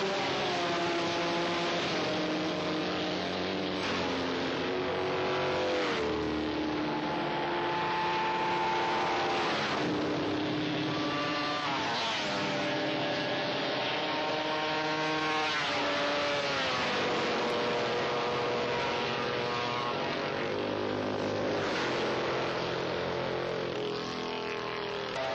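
Historic-class racing motorcycles' engines running hard, several at once, their notes climbing and then dropping sharply a handful of times.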